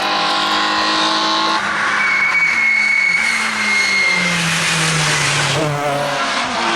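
Rally car engine running hard. Its pitch falls as the car slows, breaks off briefly near the end and then climbs again, with a high steady whine over it for a couple of seconds midway.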